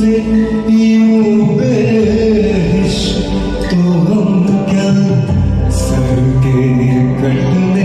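Ghazal music: long held melody notes over a low bass line that shifts every second or two.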